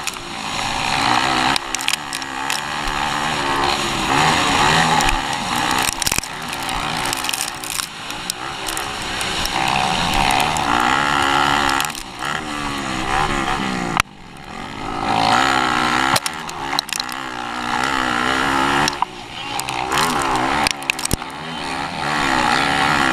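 Motocross bike engine revving hard from onboard the bike, its pitch climbing and dropping over and over as the rider works the throttle through the gears, with sharp drops off the throttle around the middle.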